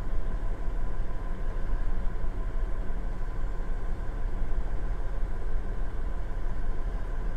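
2019 Toyota 4Runner TRD Pro's 4.0-litre V6 idling in Park, a steady, even hum heard from inside the cabin.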